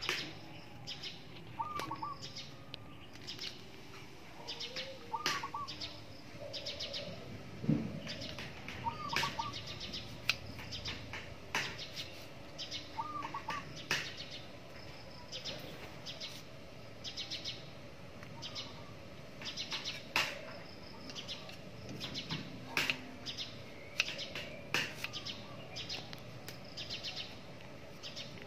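Birds chirping, with short pulsed trills over and over and a clipped two-note call repeating every three to four seconds in the first half. Occasional sharp clicks and knocks from food being handled and cut on a wooden chopping board.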